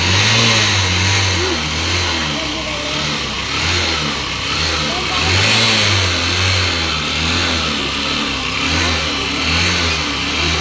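Honda Shine motorcycle's 125 cc single-cylinder engine revving up and down in repeated blips, its note rising and falling about once a second.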